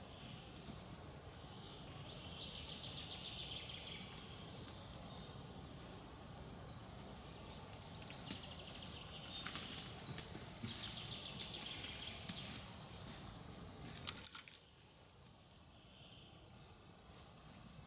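Spring forest ambience: small birds singing in trills over a steady low hiss. A few sharp snaps and clicks come between about eight and fourteen seconds in, as someone walks a bicycle through the fallen branches, and the background hiss drops off abruptly about fourteen seconds in.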